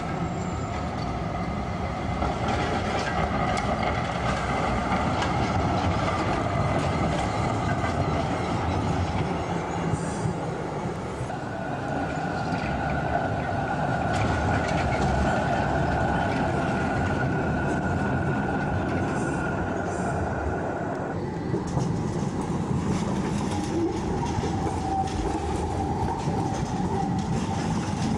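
Articulated electric trams running over street track through a junction, the wheels clattering on the rails. In the middle a steady high wheel squeal comes from the curve. Near the end a tram-train rolls past close by.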